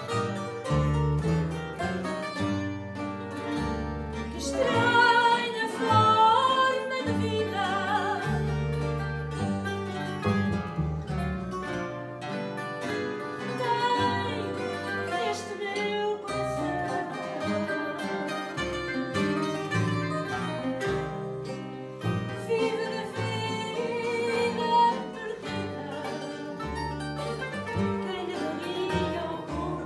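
Live fado: a woman's voice singing phrases with a wide vibrato, accompanied by two Portuguese guitars, two classical guitars and a plucked double bass.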